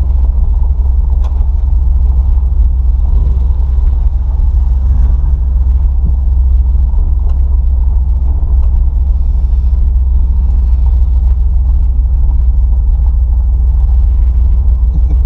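1973 AMC Gremlin X's engine and exhaust running with a low, steady rumble as the car drives slowly, heard from inside the cabin.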